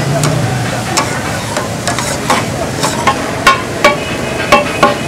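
Chicken pieces sizzling on a large flat tawa griddle while a metal spatula scrapes and clinks against the griddle as they are stirred. The clinks come more often in the second half.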